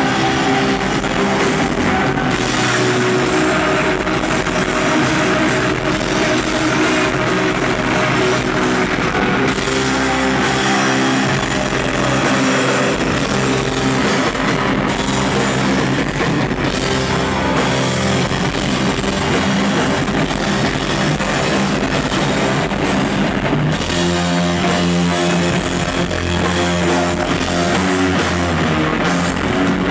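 A live rock band plays loud, distorted electric guitar and bass over drums in one dense, unbroken wall of sound. About three-quarters of the way through, the low end breaks up and held guitar and bass notes ring out more clearly.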